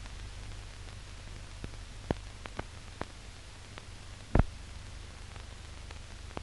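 Background noise of an old newsreel soundtrack: a steady low hum and hiss, broken by scattered clicks and pops, the loudest about four seconds in.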